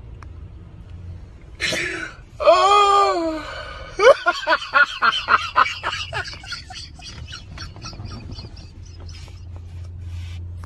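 A person's voice, not words: a drawn-out high exclamation, then a run of laughter that trails off, over a low steady hum.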